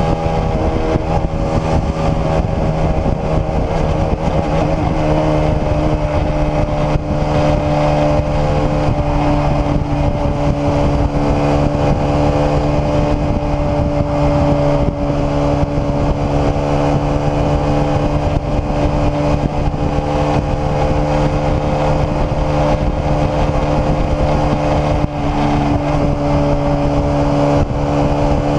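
Small sport motorcycle's engine running at a steady pitch while cruising, over a constant rush of noise; the pitch shifts slightly about four seconds in, then holds.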